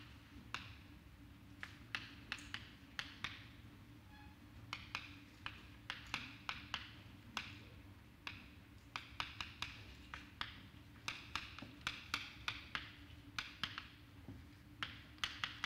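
Chalk writing on a blackboard: irregular runs of quick taps and short scratches as symbols are written, over a low steady hum.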